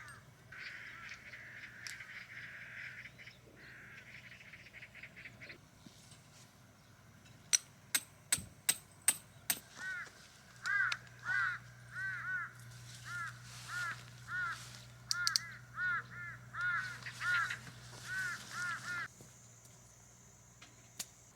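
Crows cawing over and over, about twenty short harsh calls in a row. Shortly before the calls, a quick run of six sharp knocks.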